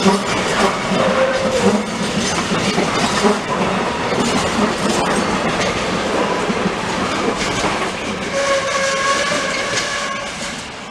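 Container freight train's wagons rolling past close by: a steady rumble with the clatter of wheels over rail joints. Near the end a pitched squeal sounds for a couple of seconds, and the noise begins to fade as the train pulls away.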